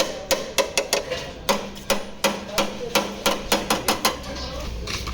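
Hammer blows on the sheet-metal front bodywork of a Suzuki Alto Lapin, a quick run of ringing strikes about three or four a second: panel beating to straighten accident damage.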